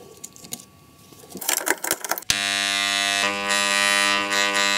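A few small handling clicks, then about two seconds in a steady electrical buzz starts suddenly. It comes from the armature of a Makita angle grinder, fed mains current through a series light bulb to the brushes only. The buzz is even, the sign of a healthy armature with no shorted turns.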